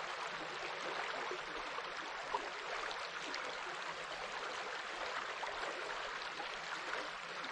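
Gently flowing water: a steady babble of small ripples and trickles.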